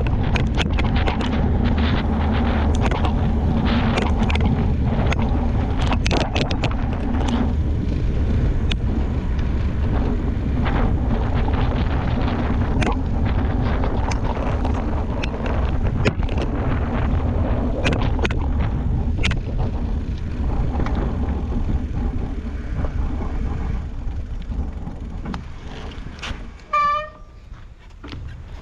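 Riding noise of a mountain bike picked up by a GoPro: a steady rush of wind and tyre rumble, with many sharp rattles and clicks from the bike. It gets quieter over the last few seconds, and a short high-pitched call sounds once near the end.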